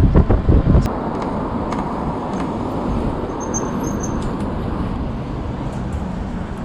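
Wind buffeting the microphone in heavy gusts, which stops about a second in, leaving a steady rush of outdoor noise with a few faint clicks.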